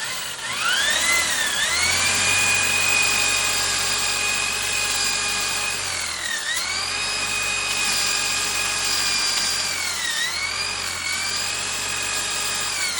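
Electric buffer (polisher) running up to speed with a steady whine, its pitch sagging briefly three times as load comes on it, then winding down near the end. The pad is being cleaned out on the spinning buffer with a pad spur.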